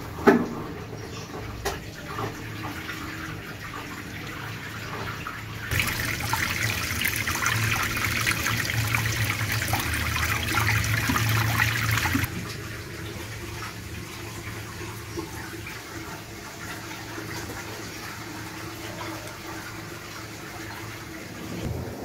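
Haier top-load automatic washing machine emptying: a sharp click near the start, then a steady low hum with water moving in the tub. From about six to twelve seconds in, a louder rush of drain water gushes out of the machine's drain hose, then cuts off abruptly. This is the drain stage that comes before the spin and rinse.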